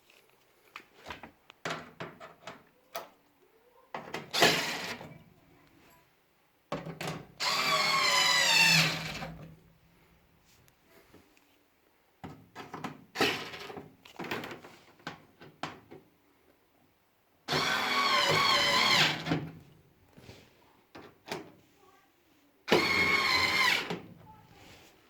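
Power drill driving or backing out screws in five bursts of one to three seconds, its whine wavering in pitch as the trigger is worked. Clicks and knocks of handling metal panels and screws come between the bursts.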